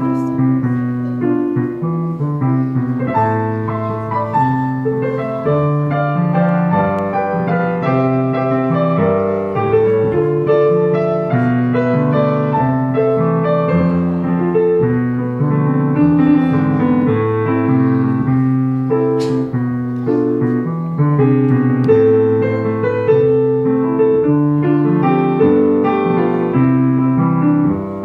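Background piano music: a slow, continuous run of sustained notes and chords.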